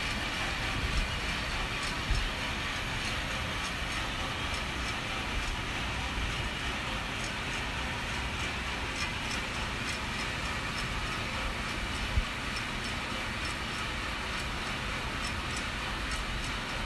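Vina Roaster coffee roasting machine running steadily early in a roast, beans at about 138 °C: an even rushing of its blower and burner with faint, regular ticking. A single knock sounds about twelve seconds in.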